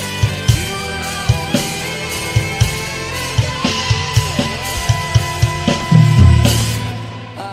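Acoustic drum kit played over a rock backing track: steady kick and snare strikes under sustained held notes. About six seconds in comes one big accented hit that rings out and fades.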